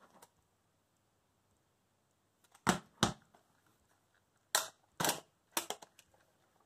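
Sharp clicks and snaps from a folding Polaroid SX-70 camera being handled and unfolded: a pair a little before halfway, then three more in quick succession near the end.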